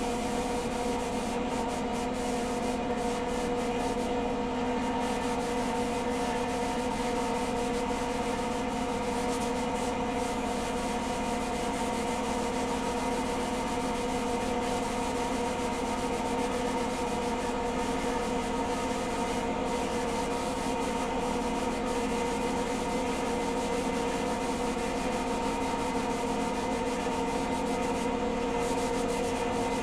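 Electric motor-driven machine running steadily: a constant hum with a rubbing, scraping noise over it, unchanged throughout.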